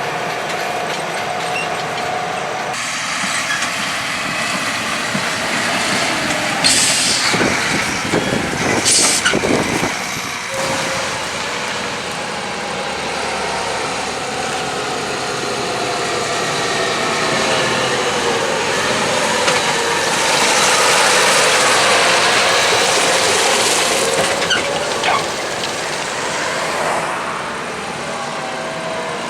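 Heavy farm machinery engines running, their pitch drifting up and down, with two brief loud hissing bursts about seven and nine seconds in.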